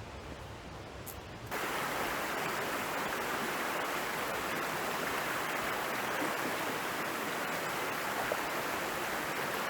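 Steady rushing water of a jungle stream. About a second and a half in it cuts in abruptly over a quieter low rumble.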